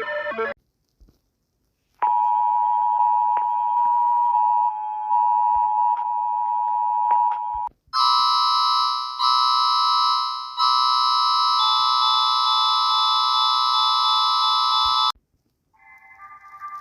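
Emergency Alert System alarm: a loud, steady two-tone attention signal starts suddenly and holds for about six seconds. After a brief break, a harsher, buzzier alarm tone sounds for about seven seconds with a few short dips, then cuts off.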